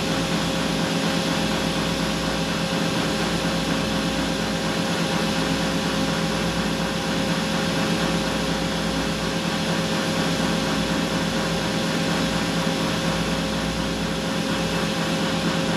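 Star CNC tool and cutter grinder running its cycle: a diamond wheel grinding the cutting edge relief on a carbide drill under oil coolant. A steady whir with one constant whine and no breaks.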